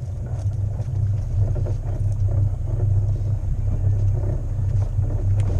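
Fishing boat's motor running steadily, a constant low drone.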